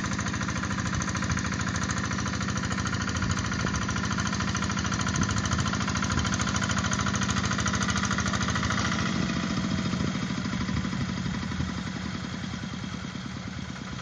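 Two-wheel hand tractor's single-cylinder diesel engine running steadily under load as it ploughs a flooded rice paddy, with a rapid, even chugging. It gets a little quieter about ten seconds in.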